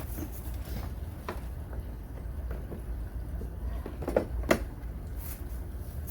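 Handling noise on the camera as it is set up: a few knocks and clicks, the two loudest about four seconds in, over a low rumble.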